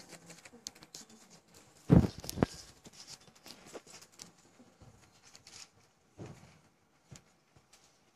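Microphone handling noise: a pair of dull thumps about two seconds in, then scattered knocks and clicks as a table microphone is picked up and set in place.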